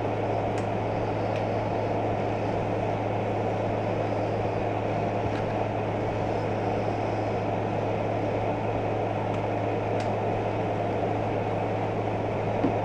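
Steady mechanical hum with a low drone at an even level, and a few faint clicks as a camera and its shotgun mic are handled.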